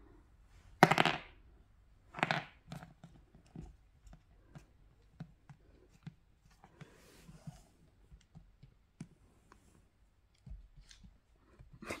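A puppy mouthing and pawing at an ice cube on a wooden floor: two louder short scraping noises in the first few seconds, then a scatter of small clicks and taps of ice and claws on the boards.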